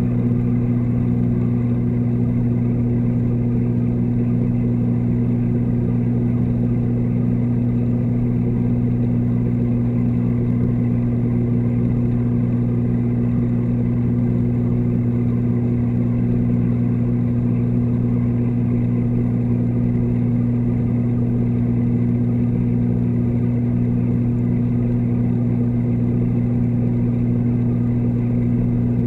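Steady low hum of the reef tank's water pumps and powerheads, picked up underwater through the camera's waterproof housing, with two strong unchanging low tones.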